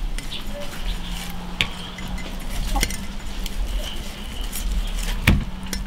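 Cleaver blade cutting and scraping through roast leg of lamb, with a few light clicks and one sharp knock near the end.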